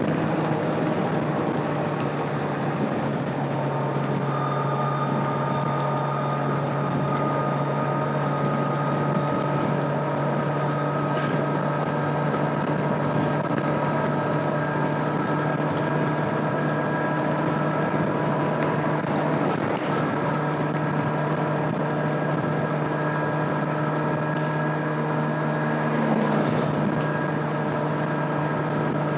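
A 2025 Kawasaki Z900's inline-four engine on its stock exhaust, running at a steady cruise with an even engine note, with wind noise on the microphone.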